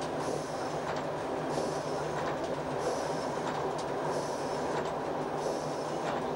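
ALn 668 Breda diesel railcar running at speed, heard from inside its cab: a steady engine hum under the rumble of wheels on the rails, with a higher hiss swelling and fading about every second and a half.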